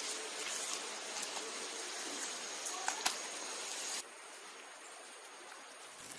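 Faint steady hiss with a few soft clicks, dropping quieter about four seconds in.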